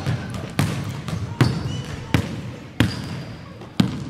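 Basketball being dribbled on a hardwood gym floor: five sharp bounces a little under a second apart, each ringing briefly in the hall, with a short squeak of shoes on the floor between them.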